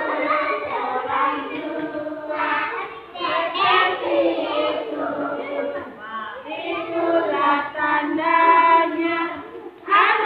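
A group of children singing a song together in sung phrases, with short breaks between them.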